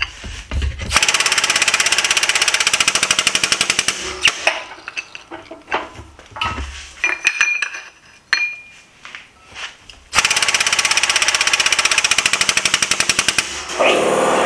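A shop press's air-over-hydraulic jack pumping in two rapid, rattling bursts of about three seconds each, one about a second in and one about ten seconds in, driving a ball die down into a dished metal disc. Between the bursts there are metal knocks and a brief ring as the piece is handled.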